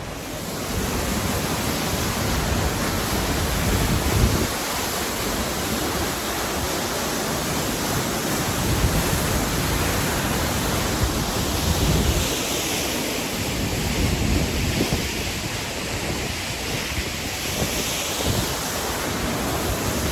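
Steady rush of fast-flowing water, with gusts of wind buffeting the microphone in low rumbling surges every few seconds.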